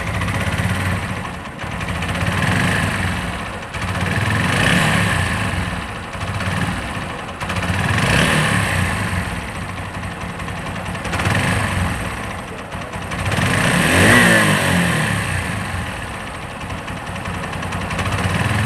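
TVS Apache RTR 160 4V single-cylinder engine running and being revved up and down about five times. It has a knocking noise that the mechanic likens to the sound of a broken gear pinion.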